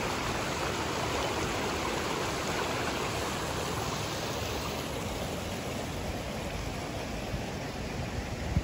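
Fast, shallow mountain stream water rushing over stones past a stone sluice, a steady rush that eases off a little in the second half. A single low thump comes near the end.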